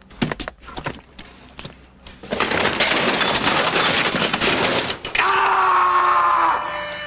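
Desk things (phone, papers, desk accessories) knocked and swept off an office desk: scattered clatters at first, then a dense stretch of crashing and breaking. About five seconds in, a man screams loudly, the scream fading near the end.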